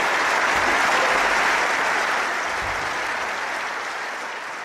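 Audience applauding, fading away over the last couple of seconds.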